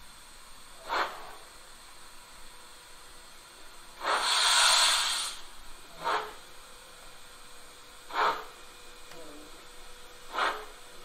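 Steam-locomotive sound from the ESU LokSound 5 decoder in a gauge 1 (1:32) brass model of a Prussian T3 tank engine running at a slow speed step. Soft exhaust chuffs come about every two seconds, with one longer, louder hiss of steam about four seconds in.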